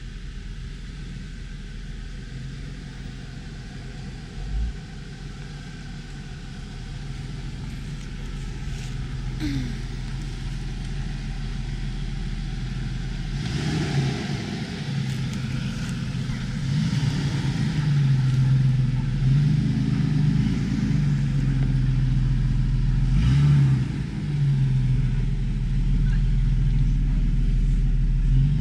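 Off-road vehicle's engine running under load, getting steadily louder and revving up and down in the second half as it works over rough ground.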